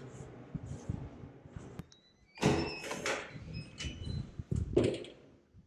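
A string of knocks and thuds, the loudest about two and a half and three seconds in, with a few short high squeaks among them.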